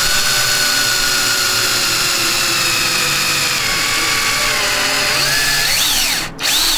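Power drill boring into a clear acrylic panel. The motor whines steadily, sagging slightly in pitch as the bit bites, then speeds up and slows as the trigger is eased, stopping briefly about six seconds in before starting again.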